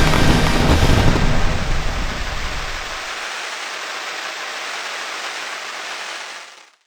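Fireworks finale dying away: a dense crackling hiss over low rumbling booms, the rumble fading out over the first three seconds and the hiss going on until it cuts off suddenly near the end.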